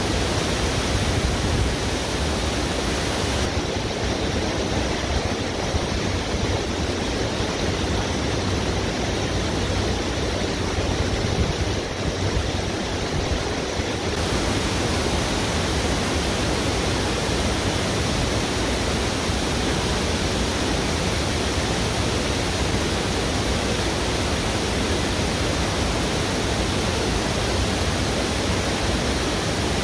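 Steady rushing of river rapids, an even roar of fast-flowing water.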